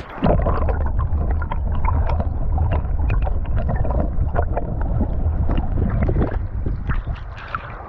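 Ride inside a bus: a steady low engine and road rumble, with frequent small rattles and knocks.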